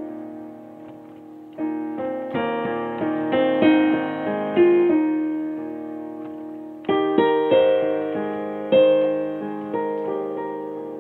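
Background piano music: a slow run of struck notes and chords, each ringing and fading before the next.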